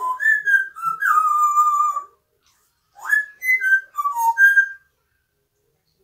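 African grey parrot whistling a tune: a phrase of clear notes stepping up and down lasting about two seconds, then a second, shorter phrase about a second later.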